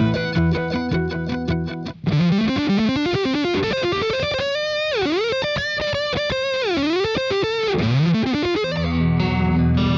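Electric guitar played through an Eventide PitchFuzz fuzz and pitch-shift pedal. It starts with fast repeated chopped notes, then after a brief gap one long note glides up in pitch and holds, dipping down and back up several times. A sustained distorted chord comes in near the end.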